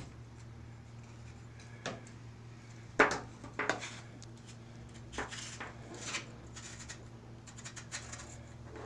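Plastic housing of a GW5188/GW5189 dome IP camera handled and twisted by hand: scrapes and knocks of plastic parts, the loudest knock about three seconds in, then a run of small clicks near the end.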